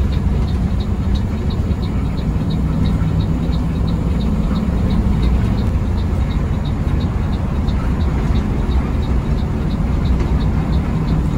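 Intercity bus under way, heard from inside the driver's cab: a steady low engine and road drone. A light regular ticking runs over it at about three ticks a second.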